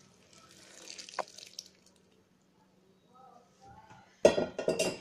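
Thick sugar syrup trickling and dripping from a pot onto milk-soaked bread slices in a pan. Near the end comes a run of loud knocks and clatter, the loudest sound.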